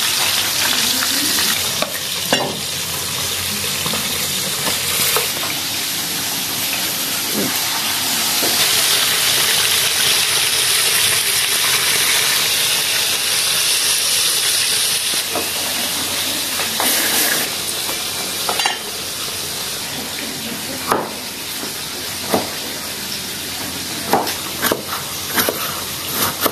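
Tilapia frying in hot oil in a pan, a steady loud sizzle as the fish are turned with chopsticks. Near the end the sizzle drops lower and a cleaver chops lemongrass on a wooden board in a run of sharp knocks.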